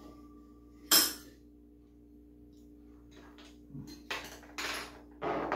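Stainless steel bowls and a metal ladle clinking at a dinner table: one sharp clink about a second in, then a few short scraping sounds near the end as soup is ladled into a metal bowl.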